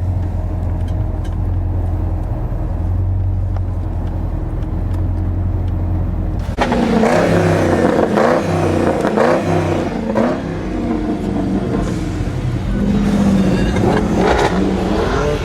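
Car engine and road noise as a low, steady drone, then from about six seconds in, louder engine revving that rises and falls in pitch again and again.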